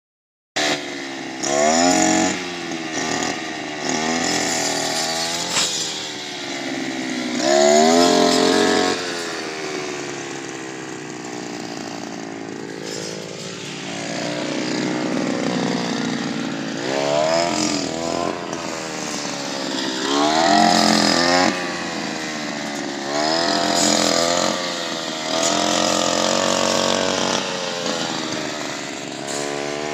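Engine of a wheat-cutting machine running hard and revving up and down again and again.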